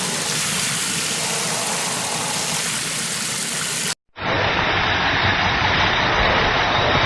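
Steady rushing noise that cuts out abruptly about four seconds in, then after a split-second gap is replaced by a different, louder and duller rushing noise.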